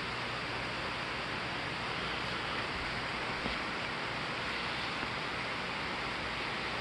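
Steady rushing hiss of an approaching night thunderstorm, unbroken and with no thunder.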